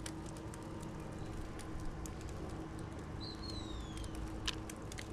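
Water dripping from a handful of soaked hickory wood chips back into a bucket of water: a scatter of small, irregular drips. About three seconds in, a bird gives one short falling call.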